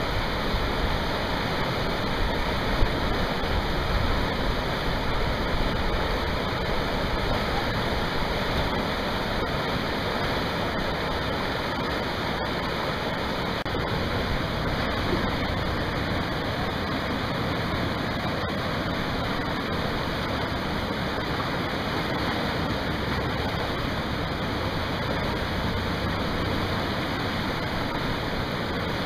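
Whitewater rushing steadily over a standing wave in a concrete artificial whitewater channel.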